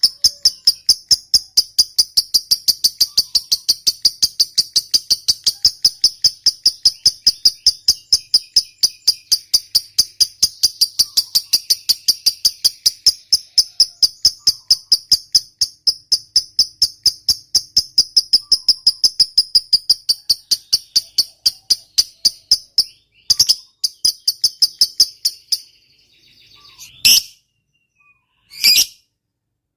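Lovebird giving its long 'ngekek' chatter: a fast, even run of sharp high chirps, about five a second, kept up for some twenty seconds. It then breaks off into a few separate shrill calls near the end.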